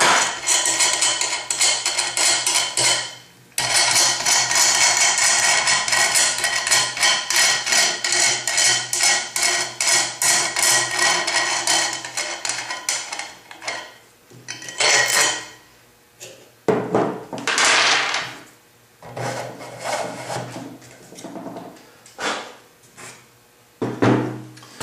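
A nut spun by hand up the threaded rod of a homemade clutch spring compressor gives a fast, rapidly repeating rasp of metal on thread as the clutch's return-spring tension is released. After about 13 seconds this gives way to scattered knocks and clatter of metal parts and wood handled on the bench.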